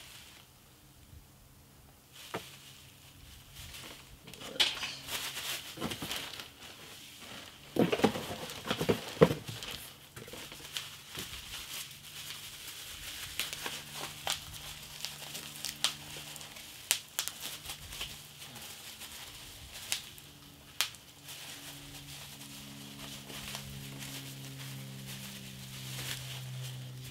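Bubble wrap and plastic packaging being unwrapped and crinkled by hand: a long run of irregular rustles and small crackles, busiest about eight to nine seconds in.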